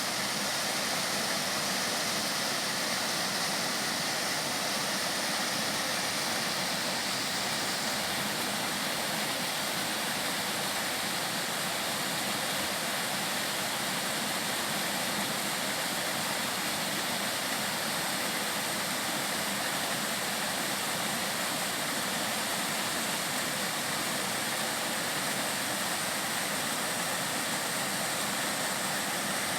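Mountain valley stream, water rushing in a steady, even hiss.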